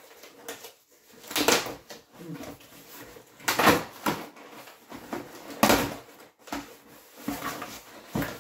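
Cardboard shipping box being torn open by hand: three loud tearing, scraping bursts about two seconds apart, with rustling and knocks of cardboard in between.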